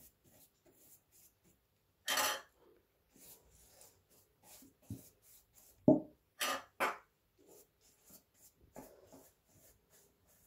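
Pastry brush dabbing melted butter onto filo pastry sheets in quick, soft, hissy strokes, with a few louder short rustles and a single thump just before halfway through.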